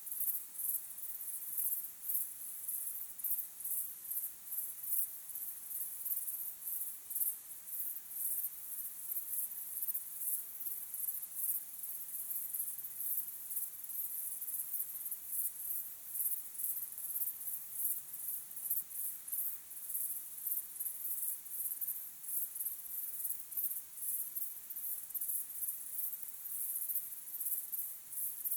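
A chorus of crickets chirping: a fast, high-pitched pulsing that runs on without a break.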